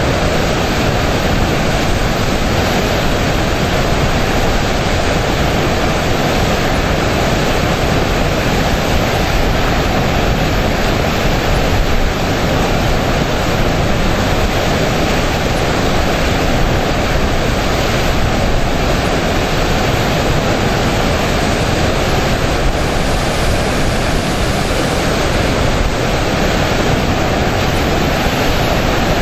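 Floodwater rushing through a river diversion spillway: a loud, steady rush that keeps up without a break.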